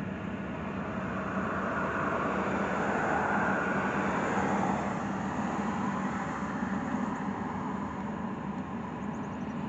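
Steady vehicle rumble with a constant low hum, heard from inside a car cabin, swelling slightly around the middle.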